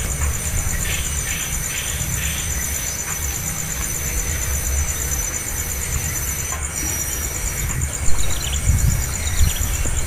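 A steady, high, pulsing insect drone over wind rumbling on the microphone. Short high chirps from young birds come through, and there is a sharp thump about eight seconds in.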